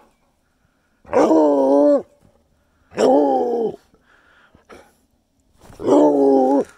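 Treeing Walker Coonhound giving three drawn-out, wavering moans, each about a second long and spaced about two to three seconds apart.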